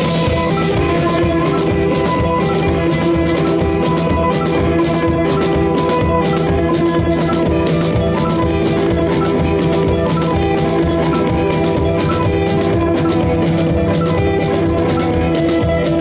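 Live band playing an instrumental passage: drum kit keeping a steady beat under electric guitars and synthesizer keyboards.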